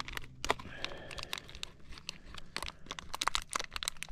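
Crinkling and clicking handling noises of fingers working with small foam bait balls, taken out and fitted to a fishing hook, with many quick crackles.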